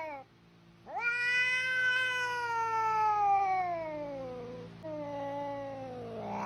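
Domestic cat giving two long, drawn-out meows: the first rises quickly and then slides slowly down in pitch for about four seconds, and a second, shorter one follows, also falling.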